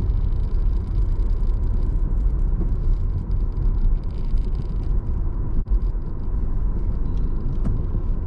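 Car interior road noise while driving slowly: a steady low rumble of the engine and the tyres on the road, heard inside the cabin.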